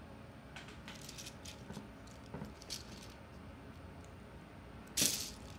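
Loose plastic Lego bricks clicking and rattling faintly as a hand picks through a plastic basket of pieces, with one brief, louder rustle near the end.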